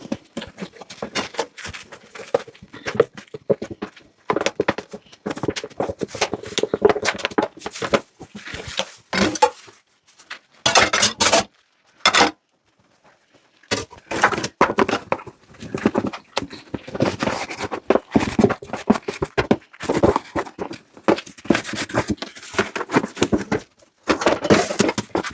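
Dishes and cutlery clinking, knocking and scraping as they are handled and scrubbed at a kitchen sink, in irregular clusters, with a pause of about a second and a half about halfway through.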